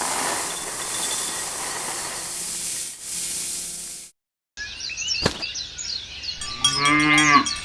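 A steady hissing noise for about four seconds, a brief break, then short high chirps and a cow mooing near the end.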